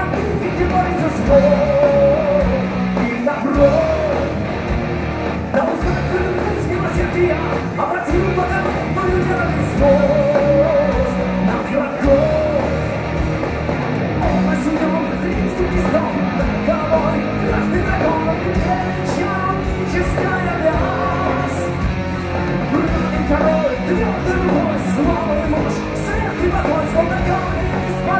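Heavy metal band playing live: distorted electric guitars, bass and drums with crashing cymbals under a male lead singer.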